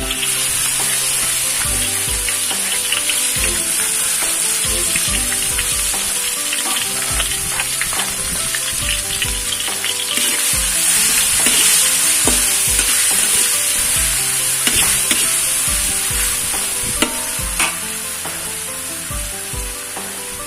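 Ground spice paste of shallots, garlic, ginger, candlenut and turmeric sizzling in hot oil in a pan as it is sautéed, with a steady frying hiss and scattered clicks of the utensil stirring it.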